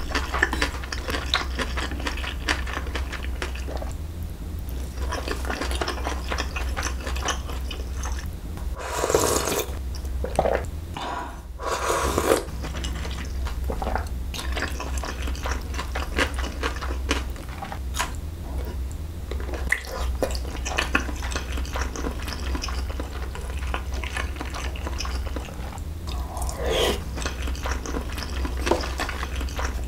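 Close-miked eating sounds: wet chewing of dumplings and cold wheat noodles, with steady small mouth clicks and a few louder slurps about nine, twelve and twenty-seven seconds in.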